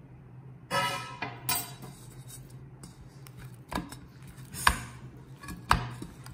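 A steel spoon clinking against a stainless steel mixing bowl, the bowl ringing briefly, then a few sharp knocks of the bowl as oiled dough is turned and pressed in it. A low steady hum runs underneath.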